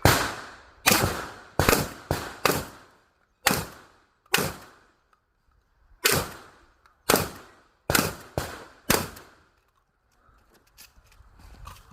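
Shotgun fired in quick strings during an IPSC shotgun stage: about a dozen shots, each with a short echo, in bunches of two to four with brief pauses between. The shooting stops about nine seconds in, and faint clatter follows.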